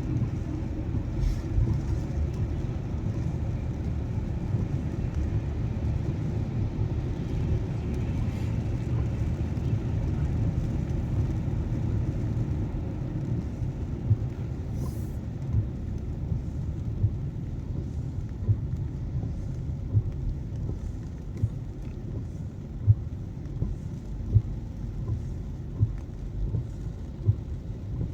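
Car running on the road, heard from inside the cabin as a steady low rumble. In the second half, short regular clicks come about every second and a half.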